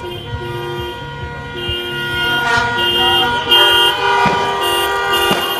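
Several car horns honking in celebration, short repeated toots at different pitches overlapping, loudest around the middle.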